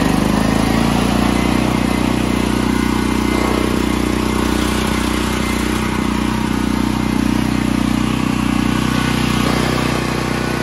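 Engine of a 10 kW Generac portable generator, converted to dual fuel, running steadily on Hythanol liquid fuel.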